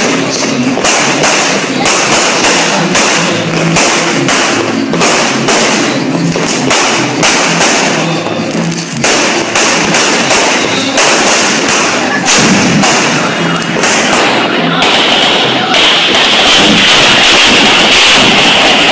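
Firecrackers going off in a long, rapid, irregular run of bangs and pops, with music playing underneath.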